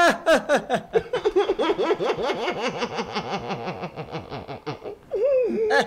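A man laughing hard in a long run of quick repeated pulses, ending in a drawn-out wavering vocal sound near the end.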